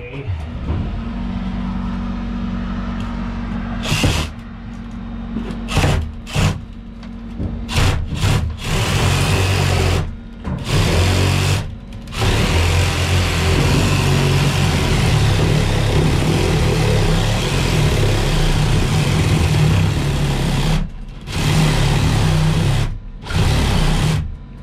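Power saw cutting through roof sheathing of half-inch plywood and shingles. The trigger is released and pulled again about every two seconds at first, then the saw runs longer stretches with brief stops.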